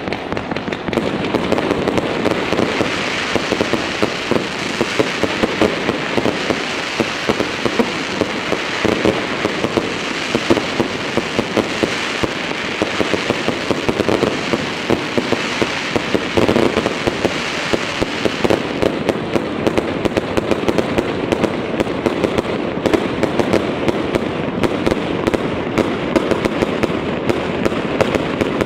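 Fireworks going off in a dense, unbroken barrage of bangs and crackling as aerial shells rise and burst.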